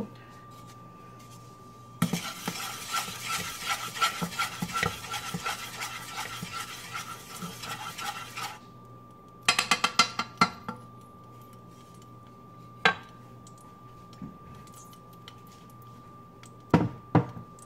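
A wooden spatula stirring and scraping around a saucepan of hot oil for about six seconds, then a quick run of clinks against the pan, with a few single knocks later on. A faint steady high tone sits underneath.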